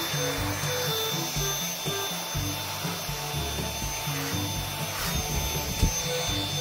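Vacuum cleaner running with a steady motor whine as its nozzle is run over a cat's fur, with a short knock near the end. Background music with short low notes plays along.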